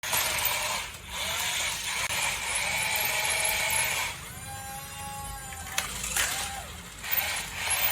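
Small electric motors and plastic gears of a remote-control toy whirring and ratcheting. A steadier, higher whine sets in at about four seconds, with a few sharp clicks.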